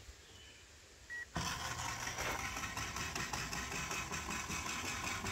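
A short electronic beep, then the Run-Chicken automatic coop door's geared motor whirring steadily as it drives the toothed sliding door panel.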